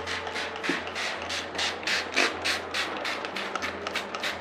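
Hand trigger spray bottle squirting water onto a thick paper poster in quick repeated spritzes, about three or four a second, wetting the paper so it will take up the wheat paste. A steady low hum runs underneath.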